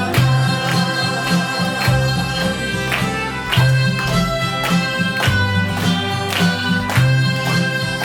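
Harmonica duet playing a slow folk-style melody over an accompaniment with a repeating bass line and a steady beat.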